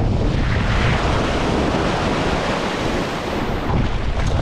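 Sea surf washing over shoreline rocks, one surge that swells up and then eases off, with wind rumbling on the microphone.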